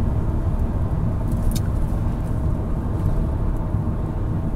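Steady low rumble of road and engine noise inside a moving car's cabin, with one brief high click about a second and a half in.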